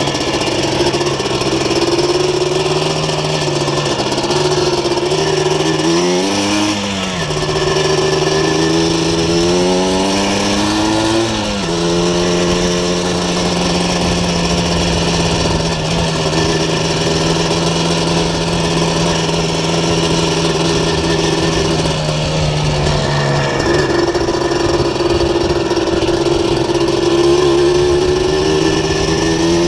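Yamaha Blaster's 200cc two-stroke single-cylinder engine, fitted with a Doma Racing full exhaust, running under way on the move. Its pitch rises twice as the throttle opens, around six and ten seconds in, then holds steady, and drops a step about two-thirds of the way through.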